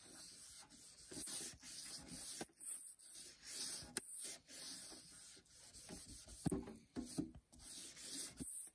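A cleaning wipe scrubbed back and forth over the plastic front cover of a Texecom Odyssey 2 alarm bell box: quiet, irregular rubbing strokes, with a few louder ones after about six seconds.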